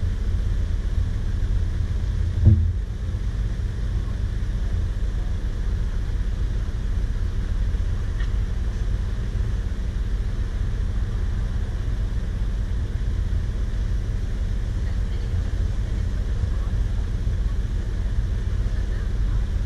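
Steady low rumble of a vehicle on the move, with a single thump about two and a half seconds in.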